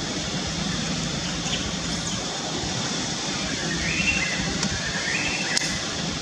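Steady outdoor background noise like a distant hiss, with two short rising chirping calls about four and five and a half seconds in.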